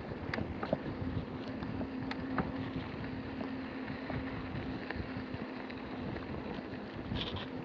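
Mountain bike rolling over a dirt trail: tyres crunching on grit, scattered knocks and rattles from the bike, and wind on the microphone, with a steady low hum underneath.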